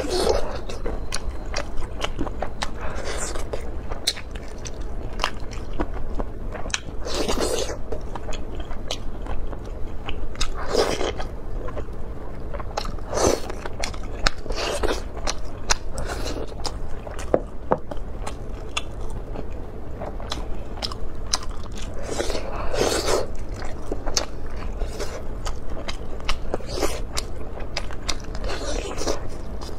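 Close-miked biting and chewing as meat is gnawed off a braised pork fan bone (shoulder blade). A steady run of small sharp clicks, with a louder bite every few seconds.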